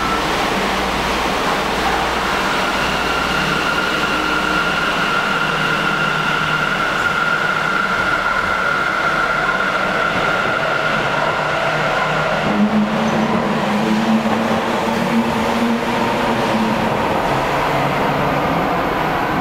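Sendai Subway Tozai Line linear-motor train running: a steady rumble with a high, steady whine. About two-thirds of the way through, the whine drops away and a lower hum takes over.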